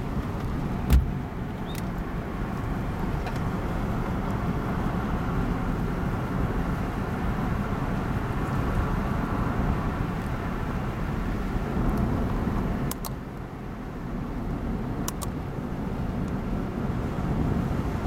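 Steady road noise inside a moving car's cabin at about 30 mph: engine, tyre and wind drone, with one sharp knock about a second in and a few faint clicks later.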